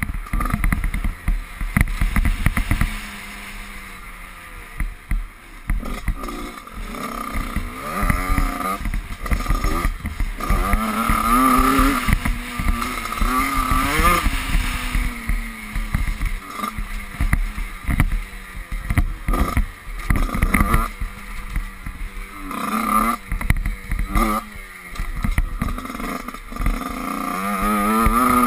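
Motocross dirt bike engine revving up and down as it is ridden over a dirt track, heard from the bike's onboard camera. The pitch climbs under throttle and drops off several times; it eases back about three seconds in, and short knocks from the bumps break through it.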